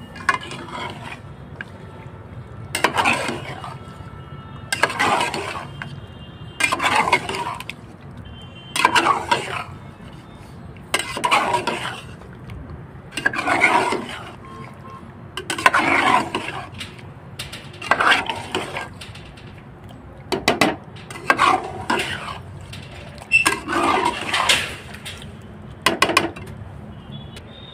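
Metal spatula scraping and stirring thick yogurt-coated chicken in an aluminium pot on low heat, about one scrape every two seconds.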